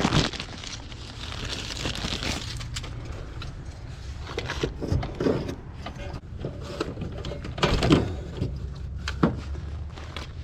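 Handling noises: scattered clicks and knocks as parts and wiring are worked by hand, with a louder knock about eight seconds in, over a faint low steady hum.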